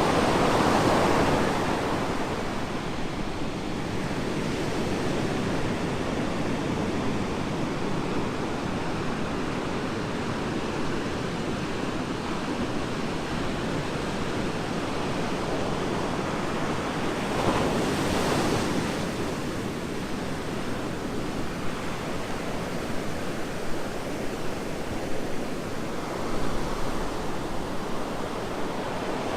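Ocean surf: waves breaking and washing up the beach in a continuous rush, swelling louder as a wave breaks about a second in and again just past the middle.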